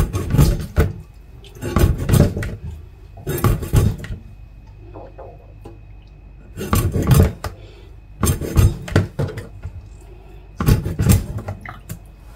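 Knife blade cutting baim fish (spiny eel) into pieces over a plastic bowl in a stainless steel sink: about six short bursts of knocks and clatter at uneven intervals, as the blade strikes and the pieces drop into the bowl.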